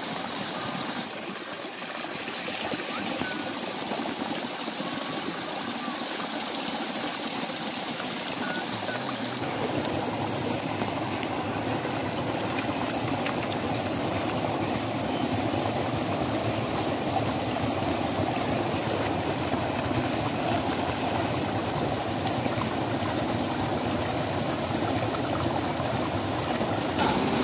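Pond water gushing steadily through a bamboo pipe and a slatted outlet, growing fuller and louder about nine seconds in.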